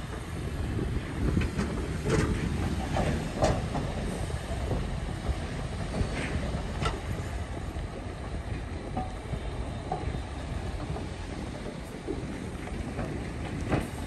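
Shantui DH17B2 crawler bulldozer at work: steady diesel engine rumble with scattered metallic clanks from its steel tracks.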